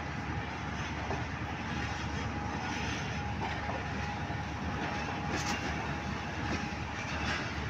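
Passenger coaches of a departing Pakistan Railways express rolling past: a steady rumble of wheels on the rails, with a few faint clicks.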